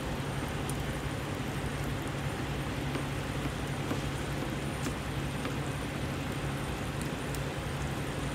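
Steady low engine hum and hiss of idling diesel trucks, with a few faint taps of a kitchen knife on a plastic cutting board as potatoes are diced.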